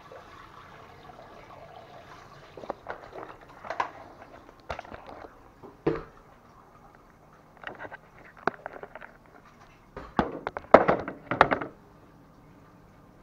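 Irregular sharp knocks and clatters, scattered singly and in small clusters, the loudest run coming about ten to eleven seconds in, over a faint steady hiss.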